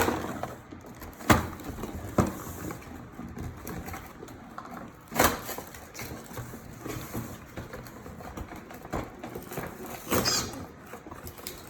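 Toy pieces being worked out of a cardboard box and its packaging: low scattered rustling with a few sharp knocks and clicks, one about a second in, another about five seconds in and one near the end.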